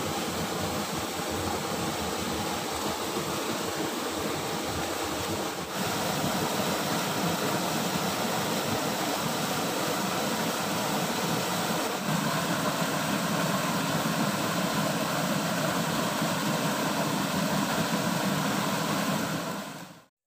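Steady rush of a small stream's flowing water. It gets slightly louder at a cut about six seconds in and stops abruptly just before the end.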